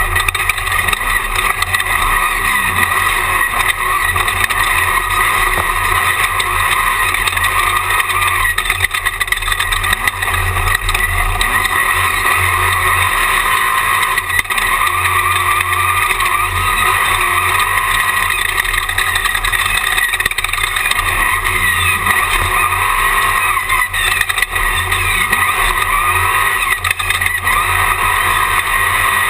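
Jimco Class 1 desert race car running at speed, heard from inside the cockpit: a loud, steady mix of engine, wind and chassis noise with only small dips in level.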